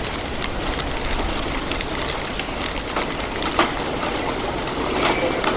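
Heavy rain falling steadily, a constant hiss with many individual drops ticking sharply on a hard surface.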